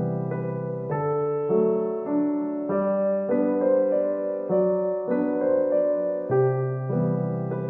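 Background piano music: a gentle melody over soft chords, with a new note about every half second.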